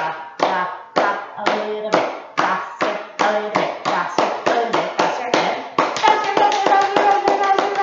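Hands clapping in a steady rhythm that speeds up, from under two claps a second to about five a second. Over the last couple of seconds a woman's voice holds a long note above the fast claps.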